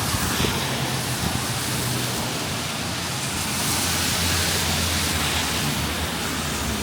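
Steady rain with city traffic on wet streets; a vehicle's tyres hiss and its engine rumbles a little louder in the middle as it passes.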